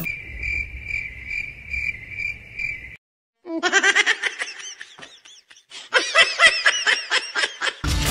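Cricket-chirping sound effect, a steady high chirp pulsing two or three times a second, cuts off after about three seconds. After a short silence, a laughing sound effect follows in fast repeated bursts, in two runs.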